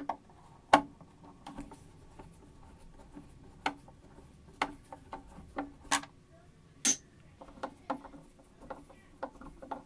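Scattered sharp clicks and light knocks of handling around the plastic case of a Macintosh SE, irregularly spaced. The loudest comes about a second in, and a run of quicker, fainter ticks follows near the end.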